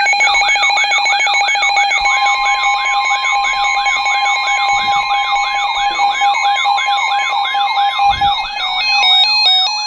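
Weather alert radios sounding their alarms: an electronic siren warbling up and down about three times a second over steady alarm tones, with a steady warning tone joining about two seconds in.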